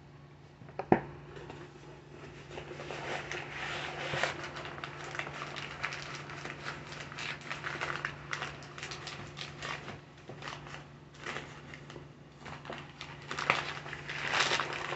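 Crunchy chewing of Argo cornstarch, a dense run of small crackles and crunches close to the microphone, with one sharp knock about a second in.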